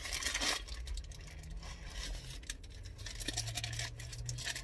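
Paper napkin and the wrap's paper wrapper rustling and rubbing as food is handled, with a burst of rustling right at the start and small scrapes and clicks after.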